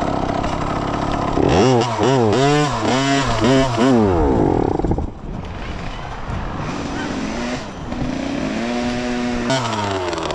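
A child's small dirt bike engine revving up and down several times in quick succession, then dropping back to a lower running note. Near the end it revs up, holds briefly and falls off again as the bike pulls away.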